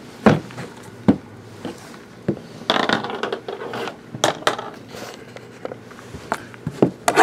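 Sealed, shrink-wrapped cardboard card boxes being handled and set down on a table: a series of short, sharp knocks, with a scraping stretch about three seconds in.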